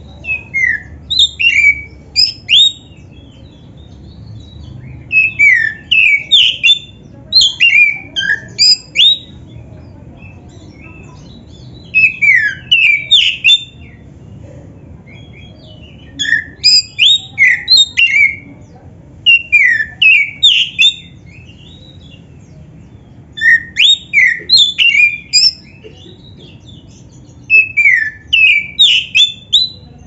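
Oriental magpie-robin singing about eight short phrases, a few seconds apart. Each phrase is a rapid run of loud, sharp, mostly falling whistled notes.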